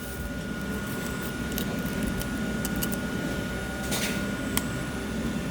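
Steady low machine hum with a thin high whine, and a few small clicks and a brief scrape as narrow Velcro is pressed into the clamp of an AMS-210EN pattern sewing machine.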